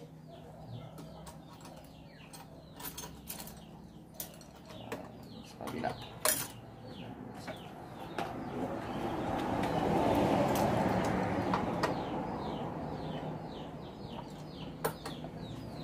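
Scattered small metal clicks and clinks of bolts, washers and a side-mirror stem being fitted to a motorcycle handlebar cross bracket, with birds chirping in the background. About halfway through a broad rushing noise swells up and fades over a few seconds.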